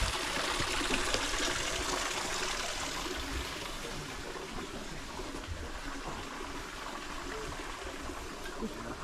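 Water trickling and flowing in a small garden stream, a steady rush that eases a little after about three seconds.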